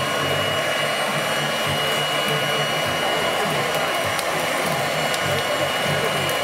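Forced air from a blower rushing through two pipes into burning charcoal in a steel drum: a steady rushing hiss with a thin, constant high whine, and faint crackling ticks from the charcoal.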